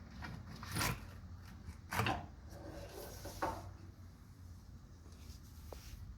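Driver's side front CV axle of a 2004 Jeep Grand Cherokee being worked out of the hub knuckle: three clunks about a second, two seconds and three and a half seconds in, with scraping and rubbing between them.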